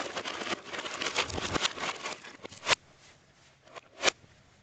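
A dense, rapid clatter of clicks and crackles for about two and a half seconds, then two sharp knocks about a second and a half apart. The audio is played backwards.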